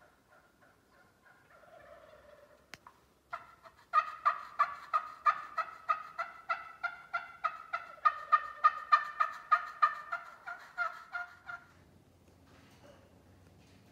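Turkey yelping: a long, fast run of sharp, evenly spaced notes, about three or four a second, starting about three seconds in and stopping near the end.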